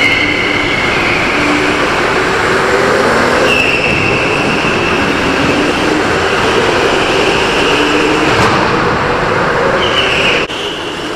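Electric go-kart running at speed, heard from onboard: a steady high motor whine over dense rumbling drive and track noise. The level drops abruptly near the end.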